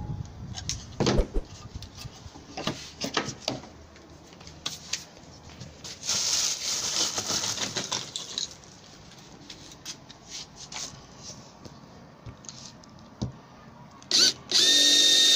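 Scattered knocks and clicks from handling composite panel pieces, with a stretch of hissy rustling about six seconds in. Near the end a corded electric drill starts up and runs loud and steady, boring into the corner of the composite panel box.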